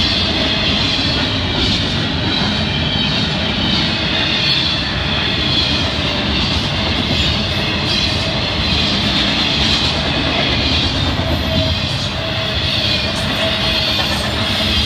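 Intermodal freight cars of a Florida East Coast Railway train rolling steadily past a grade crossing, a continuous loud rumble and rattle of wheels on rail.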